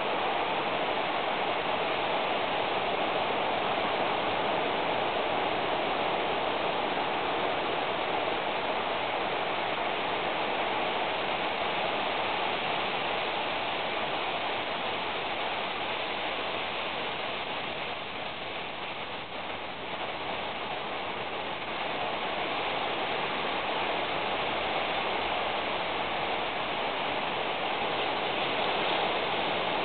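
Steady rain falling as a constant hiss with no separate drops or knocks, briefly a little quieter about two-thirds of the way through.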